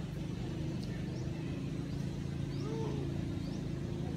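A motor vehicle engine idling steadily, a constant low hum, with a faint, short high chirp repeating about once a second.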